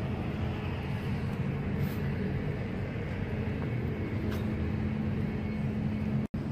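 Steady outdoor background noise of road traffic, with a constant low hum underneath. The sound drops out completely for an instant near the end.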